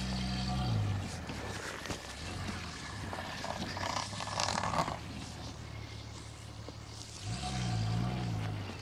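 Audi A6 C5 2.8 quattro's V6 engine being revved as the car works through snow and mud, with the tyres churning through slush. The engine note is held and then eases off about a second in, and revs up and down again near the end.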